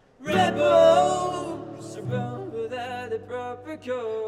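A man sings a melodic line over a strummed acoustic guitar. Chords are struck about a quarter second in and again about two seconds in.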